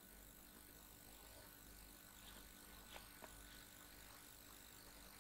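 Near silence: faint steady hiss and low hum of room tone, with two faint clicks close together about three seconds in.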